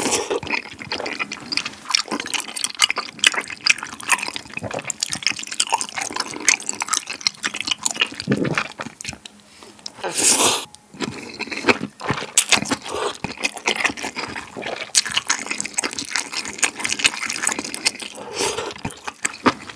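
A person slurping and chewing soupy malatang noodles: wet slurps and mouth smacks, with one longer slurp about ten seconds in.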